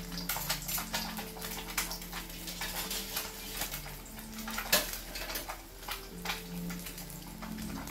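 An egg frying in hot oil in a wok, the oil crackling and spitting with irregular small pops; one louder pop nearly five seconds in.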